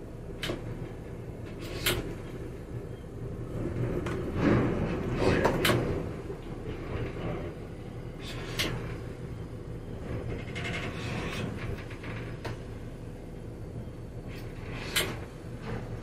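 Motor yacht's engines running at slow idle speed, a steady low hum. Sharp clicks and knocks come every few seconds, with a louder rough stretch about four to six seconds in.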